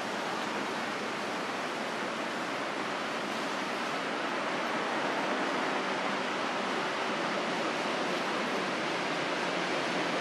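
A steady, even hiss of noise with no distinct events, growing slightly louder toward the end.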